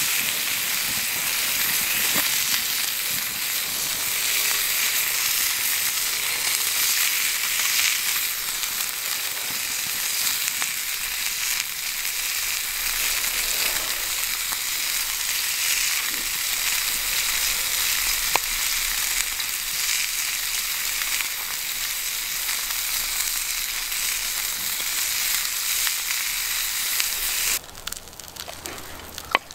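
Thick bacon frying in a pan over a campfire: a steady, dense sizzle with an occasional pop, cutting off abruptly near the end.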